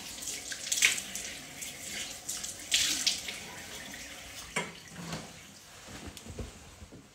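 Bathroom sink tap running while water is splashed onto the face with cupped hands, several louder splashes in the first three seconds. The running water dies away after about four seconds, followed by a few soft sounds of a towel drying the face.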